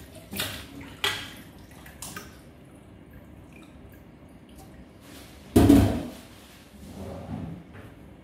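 Washing up at a stainless steel kitchen sink: a few short knocks and clinks with water dripping, then one much louder knock about five and a half seconds in.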